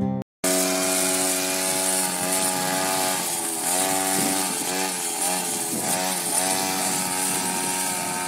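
Petrol brush cutter engine running, its pitch rising and falling as the throttle is worked.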